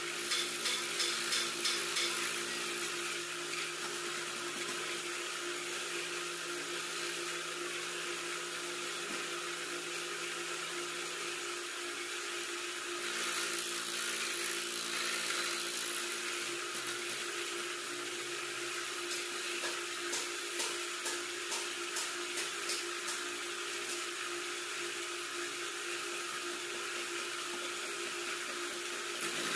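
Boring machine cutting a motorcycle cylinder bore: a steady machine hum and whine with a rhythmic chatter of about two to three beats a second, strongest near the start and again past the middle.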